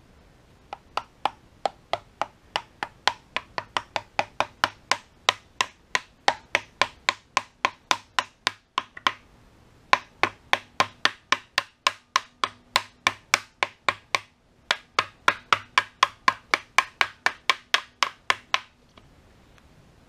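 Rubber mallet tapping a seal driver tool (the AlignIt tool), about three sharp blows a second in three runs with short pauses, driving a new one-piece rear main seal into the rear cover of an LS1 engine block. The tapping stops shortly before the end.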